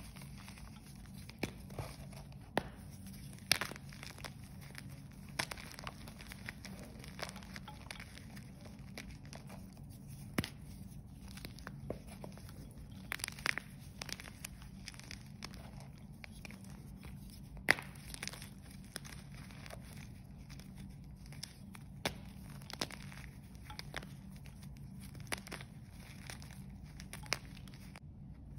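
Pink ProSource gym chalk, dyed with holi powder, being squeezed and crumbled by hand: crunching and crumbling with irregular sharp snaps as pieces break apart.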